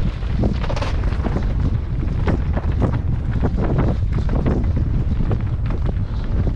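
Wind buffeting the microphone in a steady low rumble, with frequent short knocks and rattles from a mountain bike riding over rough, rocky trail.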